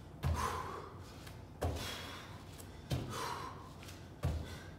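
Bare feet landing on an exercise mat during jumping alternating lunges: four thumps about 1.3 seconds apart, each followed by a breathy gasp or exhale.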